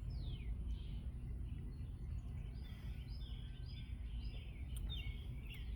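Birds chirping: many short, high calls that sweep downward in pitch, coming in irregular runs over a steady low background rumble.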